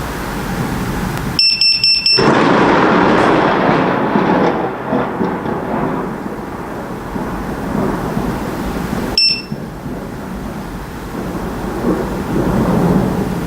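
Thunder rumbling over steady heavy rain, loudest from about two seconds in and fading over a few seconds. Just before the rumble, a Strike Alert HD lightning detector gives a quick run of about five high beeps, and it beeps once more about nine seconds in.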